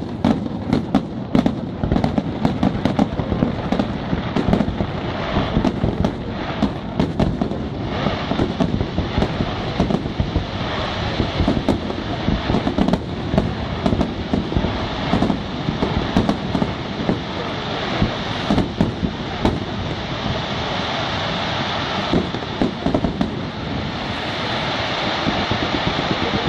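Aerial fireworks display: a rapid barrage of shell bursts going off one after another, with crackling and hissing from the burning stars between them. The sharp bangs come thickest in the first several seconds, then give way to a steady crackle with fewer, scattered reports.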